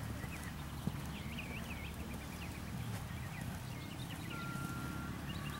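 Small birds chirping repeatedly over a steady low rumble, with a brief steady whistled note a little past the middle. A horse is cantering on arena sand underneath, its hoofbeats not standing out.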